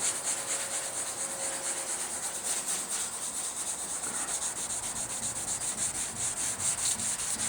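Wet sandpaper on a soft sanding block rubbed back and forth over automotive base-coat paint, wetted with plain water, in quick, steady, even strokes. The sanding is working out a mark left in the base coat before more base is dusted on.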